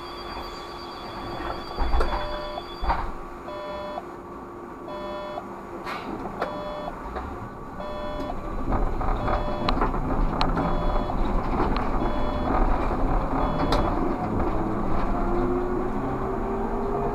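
Škoda 30Tr SOR trolleybus: short electronic warning beeps repeat about every second, the door-closing signal at a stop, with a few clicks among them. Then the trolleybus pulls away, and its running noise grows, with an electric traction whine rising in pitch near the end as it speeds up.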